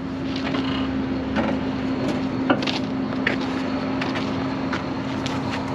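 Tilt hood of a Volvo semi-truck being unlatched and swung forward open: a handful of separate clicks and knocks over a steady low hum.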